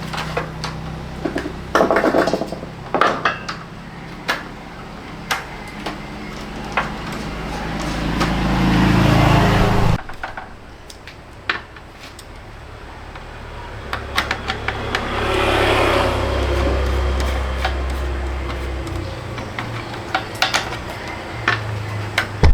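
Repeated clinks and knocks of metal parts and tools being handled during washing-machine repair work. Under them is a low motor hum that slowly swells, cuts off suddenly about ten seconds in, and later swells again.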